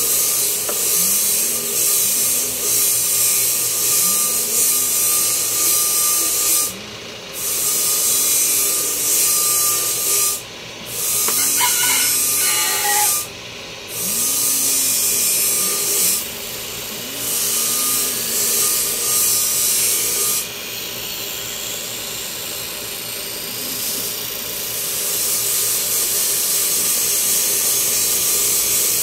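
Electric power tool running continuously under load with a harsh hiss and a steady whine. It drops out briefly several times, runs quieter for a few seconds past the middle, then builds again.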